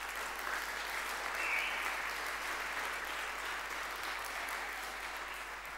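Audience applauding in a hall. The clapping builds over the first second or two, then slowly dies away.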